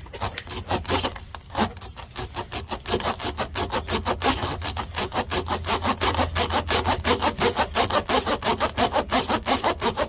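Tire plug kit's spiral reamer rasping rapidly in and out of a screw puncture in a truck tire, about five strokes a second, starting about a second in. The hole is being roughened and enlarged to take a plug.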